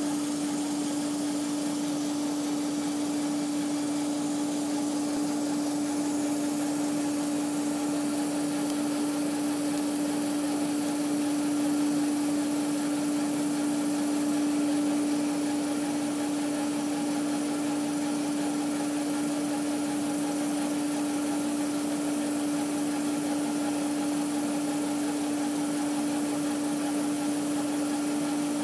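Laser engraver running as it etches text into cardboard: a steady mechanical hum with one strong, constant tone.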